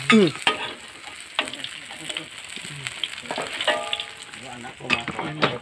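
Slices of tempeh sizzling as they fry in hot oil in a wok, with a few sharp clicks over the steady sizzle.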